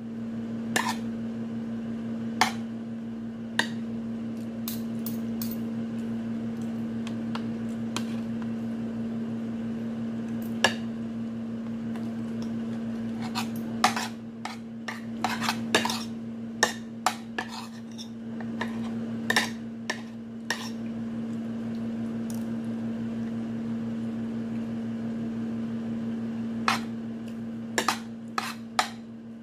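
Metal fork and spoon clinking and scraping against a plate in sharp, scattered clicks. They come sparsely at first, then in quick runs in the middle and near the end, over a steady low electrical hum.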